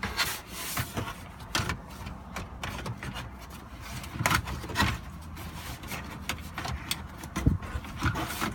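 Plastic centre console base of a Volvo XC90 being handled and fitted into place: irregular clicks, knocks and rubbing of plastic parts, with a sharper knock near the end.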